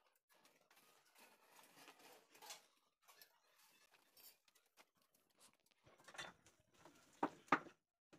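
Faint rustling and scratching of paper as cut-out paper leaves are handled and pressed onto a paper-covered frame, with a couple of louder crinkles near the end.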